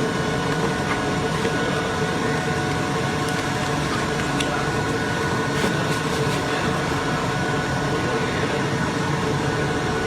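AOKE DCZ70 flatbed digital cutter running: a steady machine hum with a few constant whining tones, and a few faint clicks.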